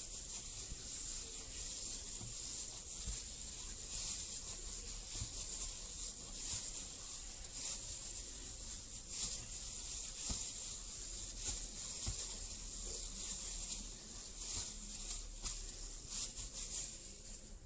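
A hand in a plastic glove kneading soft dough in a stainless steel bowl: repeated squishing and rustling strokes of the glove and dough against the bowl.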